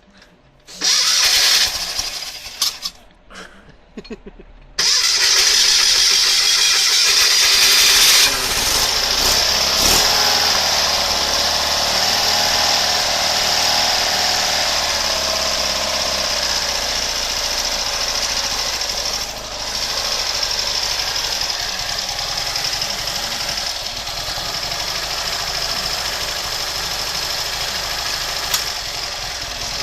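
Rebuilt 1967 Fiat 500 air-cooled two-cylinder engine, on its first start after a full rebuild, cranked in several short bursts. It catches about five seconds in, is revved briefly, then settles into running steadily.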